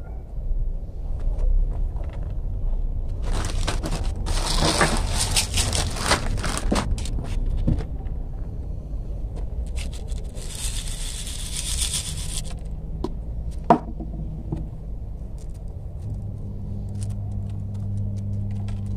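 Volcanic gravel substrate scraping and rattling in a plastic bonsai colander as it is worked in around a tree's roots, in two gritty spells of a few seconds each, with a few small clicks after.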